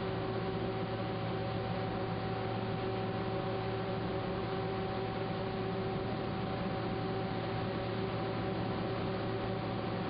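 Steady hum and hiss of foundry machinery around an electric melting furnace, with several held humming tones and no knocks or changes.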